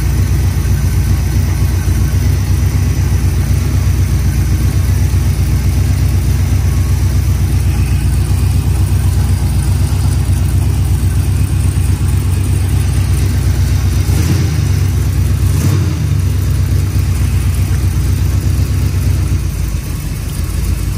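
Oldsmobile 403 V8 on an engine stand running steadily at idle on a Holley Brawler 600 double-pumper carburetor, its note changing briefly twice about two-thirds of the way through. It doesn't idle terrible.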